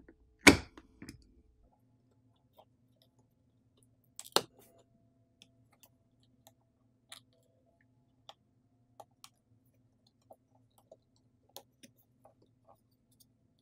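Two sharp knocks, the louder about half a second in and another about four seconds in, then scattered light clicks and ticks of pry tools and picks working around the edge of a phone's glued-down screen to pry it off.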